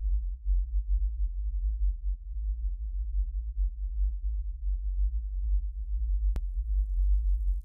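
Opening of an electronic music track: a deep bass drone that wavers in loudness. A single sharp click comes about six seconds in, followed by faint crackling high noise.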